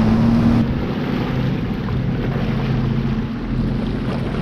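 Personal watercraft engine running at speed, with water spray and wind on the microphone. About half a second in, the sound cuts to the craft running slower, a steadier low engine hum with less rush of water and wind.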